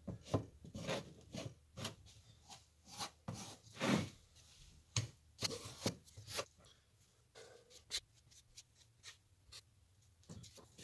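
Wooden stick scraping and spreading Bondo lightweight body filler over a pallet-wood wheel, in short irregular strokes.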